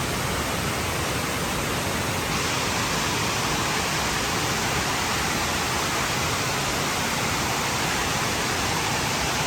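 A mountain feeder stream running high after heavy rain, rushing steadily with an even wash of water noise. The rush grows a little brighter about two seconds in.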